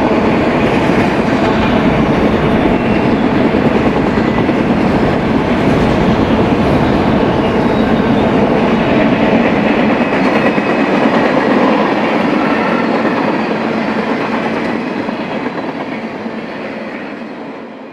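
Freight train cars rolling past, autoracks and then empty flatcars, with a steady clatter and rumble of steel wheels on the rails. The sound tapers off over the last few seconds.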